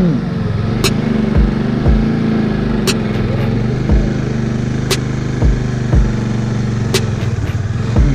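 Motorcycle engine running steadily at low speed, heard from the rider's seat, with dull thumps every second or so and a sharp click about every two seconds.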